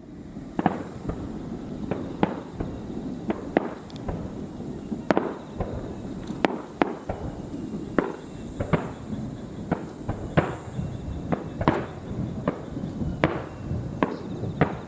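Fireworks display: shells bursting in quick, irregular succession, about two sharp bangs a second, over a continuous low rumble of further bursts.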